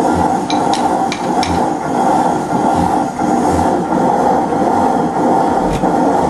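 Crossley reversible stationary engine, hand-started by swinging its heavy flywheel and now turning over slowly. A soft, even thud comes roughly every two-thirds of a second over a steady mechanical din, with a few sharp metallic clicks in the first second and a half.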